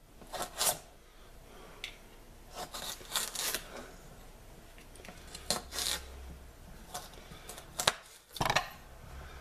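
Hands sliding and picking up chopped celery pieces on a plastic cutting board: scattered short scrapes and rustles in a few clusters, the loudest near the end.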